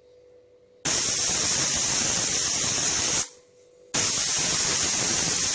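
Prestige pressure cooker whistling: its weight valve lifts and lets out two loud hissing blasts of steam, each about two and a half seconds long, the first about a second in and the second after a short pause. The cooker is at full pressure, and these are the whistles counted to time the rice.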